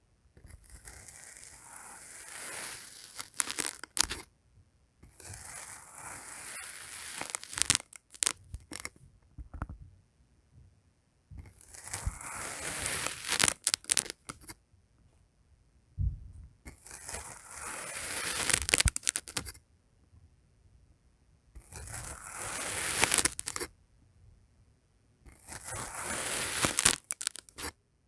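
A knife slicing down through a row of kinetic sand bars, six cuts in turn. Each cut is a gritty, crunchy scrape of two to three seconds that ends in a few sharp clicks as the blade meets the surface beneath.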